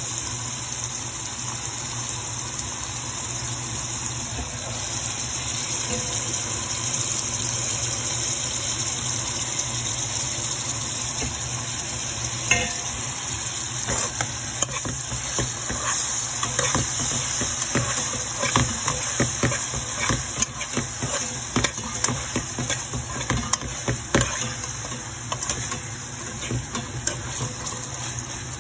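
Brown beans sizzling in oil and spices in a metal pot while a metal spoon stirs them, scraping and clicking against the pot. The stirring strokes get busier from about halfway through, with one sharper knock of the spoon just before.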